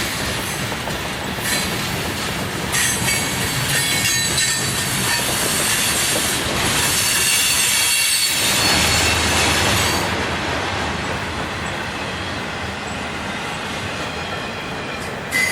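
Freight train cars rolling past, with a steady rumble and high-pitched wheel squeal on the rails that fades after about ten seconds. A brief sharp squeak comes at the very end.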